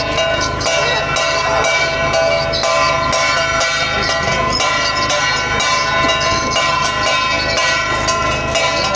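Metal bells ringing together without pause, in a dense, loud clangour struck again about twice a second.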